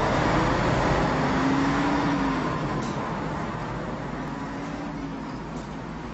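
A car driving along: steady road and engine noise, easing off slowly.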